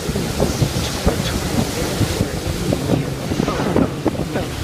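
Wind buffeting the microphone, an uneven low rumble, over water moving around a small boat on the river.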